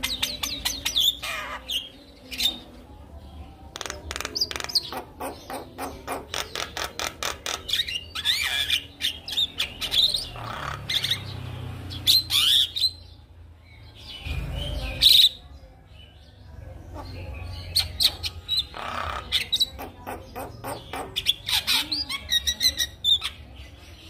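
Javan myna singing a varied, chattering song of rapid clicking notes and short whistles, with a sudden loud burst a little past halfway.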